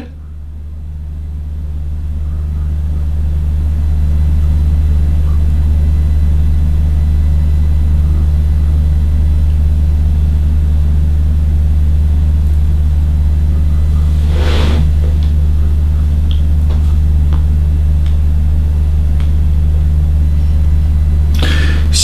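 Steady low hum that swells over the first few seconds and then holds level, with one brief rustle about two thirds of the way through.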